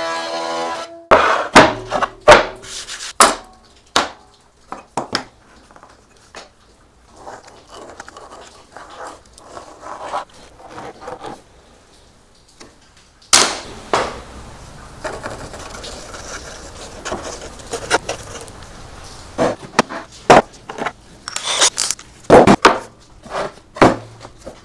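Black walnut boards being handled on a workbench: a series of sharp knocks and thunks as boards and an acrylic template are set down and shifted, with quieter scraping and rustling between them. A short bit of music ends about a second in.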